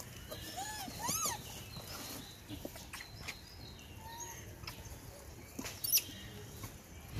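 Rhesus macaques giving a few short squeaky calls that rise and fall in pitch, among the rustling and knocking of a cardboard box of boiled potatoes they are grabbing from. A sharp knock near the end is the loudest sound.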